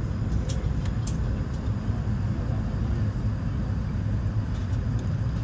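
Steady low rumble heard inside an airliner cabin parked at the gate with the doors closed, with a few faint clicks about half a second and a second in.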